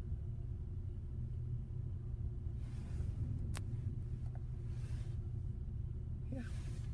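Steady low rumble inside a car cabin, with one sharp click about three and a half seconds in and a few faint brief rustles.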